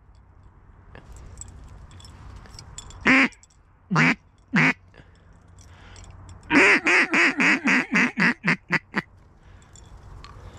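Duck call blown in hen-duck quacks: three single quacks, then a run of about a dozen quacks that come quicker and shorter until they stop.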